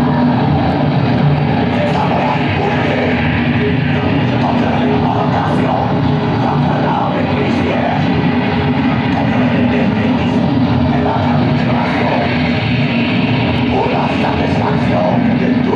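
Loud rock music playing, with guitar.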